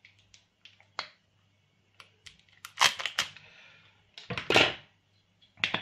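Plastic screw cap and seal of a small soy sauce bottle being twisted and cracked open: a few sharp clicks, then three short crackling bursts.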